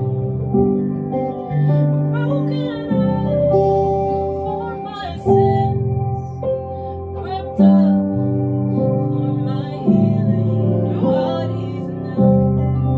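Slow worship music: a keyboard plays sustained chords that change every second or two, with a voice singing over them.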